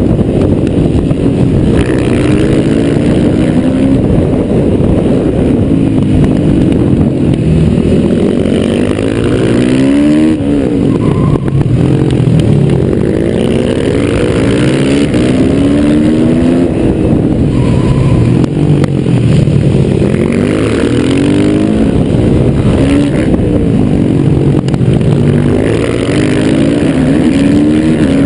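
Yamaha YZ450F single-cylinder four-stroke motorcycle engine at racing speed, its revs climbing and dropping over and over through gear changes and corners.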